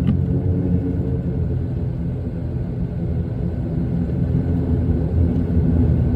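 Steady low rumble inside an airliner cabin just after landing: engine and airflow noise heard from a passenger seat.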